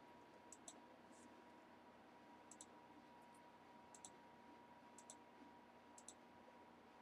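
Near silence broken by faint, sharp clicks, often in close pairs, about once a second.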